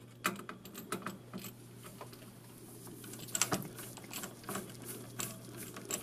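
Screwdriver tightening the spring-loaded corner screws of a CPU heatsink: a string of small, irregular metal clicks and ticks as the screws are turned down.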